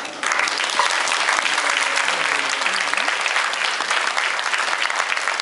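Audience applauding, breaking out suddenly just as the last piano notes fade and continuing steadily.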